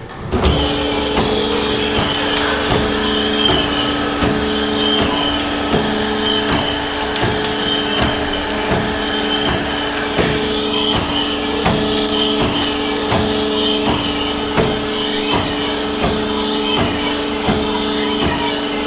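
A workshop machine starting up abruptly and running steadily with a constant hum, a regular click repeating about once or twice a second.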